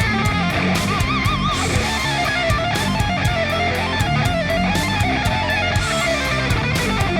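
Background rock music with a steady drum beat and distorted electric guitar, including a wavering lead guitar line.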